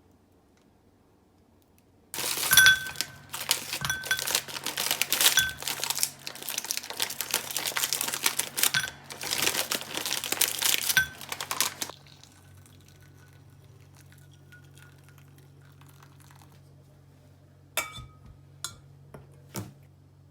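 Packaging being crinkled and handled in dense rustling bursts for about ten seconds, over a low steady hum. A few light clinks follow near the end.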